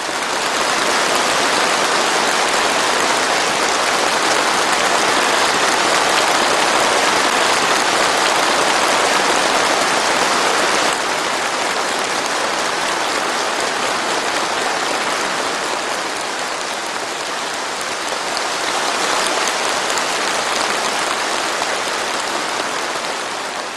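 A large crowd applauding, a steady sustained clapping that drops a little in level about halfway through.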